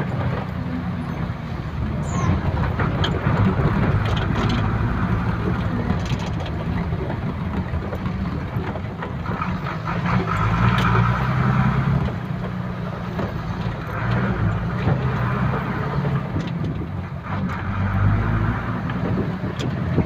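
Moving road vehicle heard from inside the cabin: a steady low engine hum and road noise, with a few short rattles or knocks.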